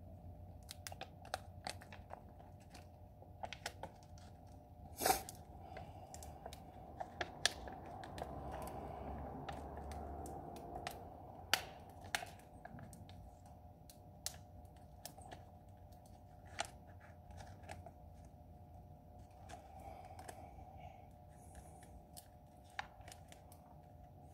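Vinyl decal's waxy backing paper being peeled off the clear plastic transfer sheet by hand: faint crackling and rustling with scattered sharp ticks, loudest about five seconds in and again near twelve seconds, over a steady hum.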